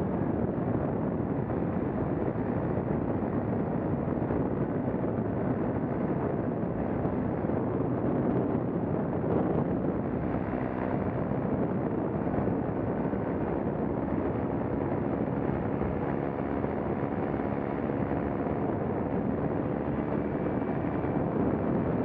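Paramotor engine and propeller running steadily, mixed with wind rushing over the camera microphone; the engine's tone comes through more clearly in the second half.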